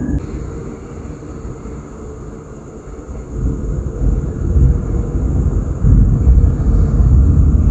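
Rolling thunder: a deep rumble that eases at first, then builds again about three seconds in and is loudest near the end.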